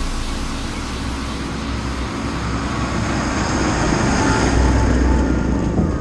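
Massey Ferguson 7718 tractor coming along the road, its engine and tyre noise a steady wash that grows louder as it approaches, peaking about five seconds in.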